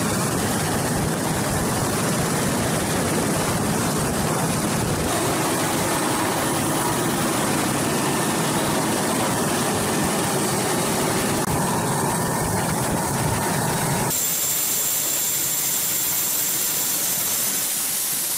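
Super Puma helicopter's rotor and turbine engines running steadily and loud, heard through the open cabin door. About fourteen seconds in, the deep rotor noise drops away suddenly, leaving a high hiss with a thin whistle.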